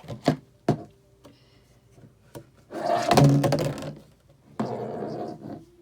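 A plastic bottle being handled and worked at: three sharp knocks near the start, then two longer bouts of scraping plastic noise, the louder one about three seconds in.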